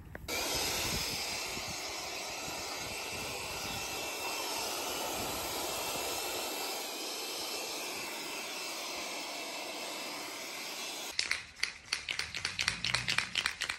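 Ryobi pressure washer spraying water onto a bare cast-iron engine block, a steady hiss of spray. About eleven seconds in it gives way to a run of short, irregular hissing bursts.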